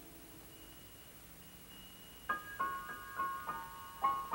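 Background film music. After a quiet start with a faint high held tone, a melody of single struck, ringing notes begins about two seconds in, roughly three notes a second.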